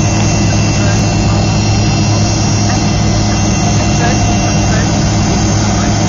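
Fokker 70's rear-mounted Rolls-Royce Tay turbofans heard from inside the cabin, running steadily while the plane taxis: a continuous low rumble with several steady high whining tones over it.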